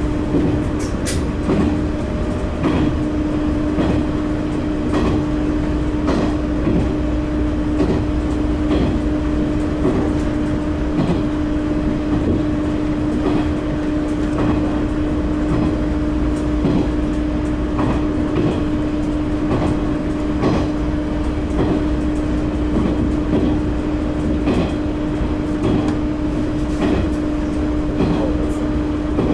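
Tosa Kuroshio Railway 9640-series diesel railcar running along the line: a steady hum over wheel-and-track rumble, with short knocks from the wheels every second or so.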